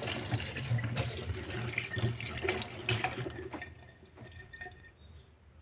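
Water running from a tap into a metal kitchen sink, with splashes and drips, dying away about three and a half seconds in.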